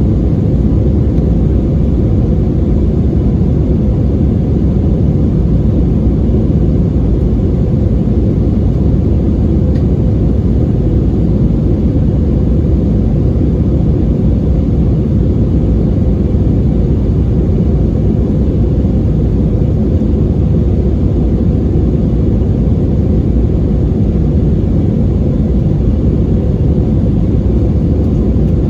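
Steady, loud low rumble of an Airbus A320's IAE V2500 engines and rushing air, heard from inside the passenger cabin.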